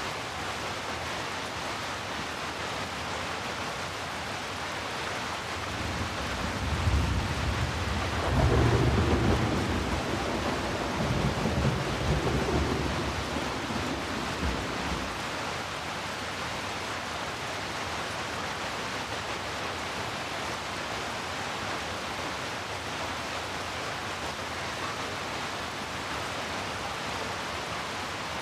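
Steady heavy rain with a roll of thunder: a low rumble rises about six seconds in, peaks a few seconds later, rumbles on and dies away about halfway through, leaving the rain alone.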